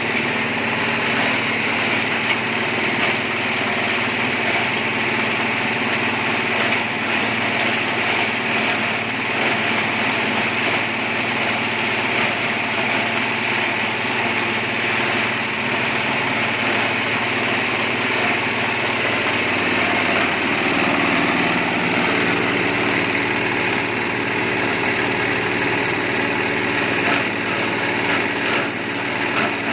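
Engine-driven compost and grass shredder running steadily at full speed, with a dense mechanical noise; its lower tones shift about two-thirds of the way through.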